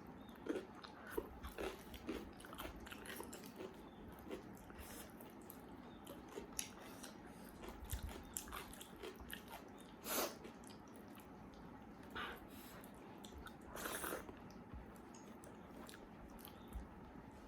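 A person eating close to the microphone: chewing and mouth noises with many small clicks, and two louder noises about ten and fourteen seconds in.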